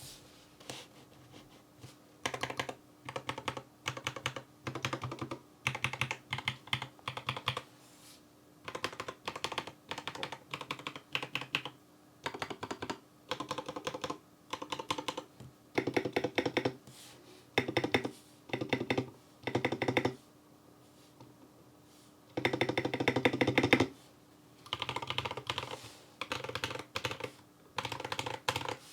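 Typing test on a BM65 custom keyboard kit with Tecsee Carrot linear switches, lubed and Holee-modded Durock V2 screw-in stabilizers and foam in the case. Bursts of rapid keystrokes come with short pauses between them, and the densest, loudest flurry comes about 23 seconds in. The builder judges that the sound could use some work, with a little ticking from the modifier stabilizers.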